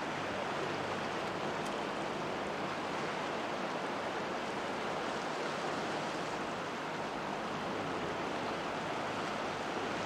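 Sea surf washing on a rocky boulder shore, an even rushing noise with no single wave standing out.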